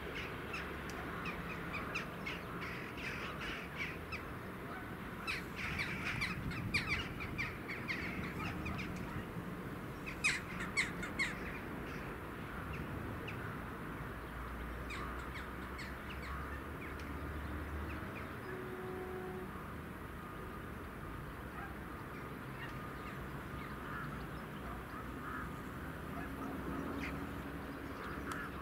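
Birds calling in scattered clusters of short calls, busiest a few seconds in and again around ten seconds in, over a low steady background hum.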